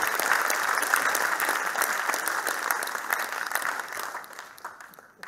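Audience applauding, a dense patter of many hands clapping that fades away over the last second or so.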